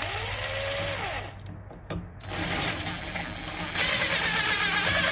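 Cordless impact driver driving 3-inch deck screws through a palm sander's metal base plate into a 2x4. There is a short spin-up and wind-down, then after a pause a longer run that gets louder about four seconds in as the driver hammers the screw home.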